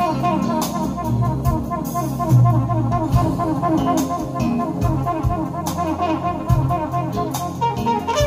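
Jazz music with brass and a steady repeating rhythm, playing from a vinyl record on a turntable.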